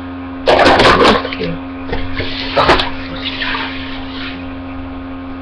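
Loud scraping rustle of a fingerboard set being handled on a bed, about half a second in, then two sharp clicks a couple of seconds later and a fainter rustle, over a steady low hum.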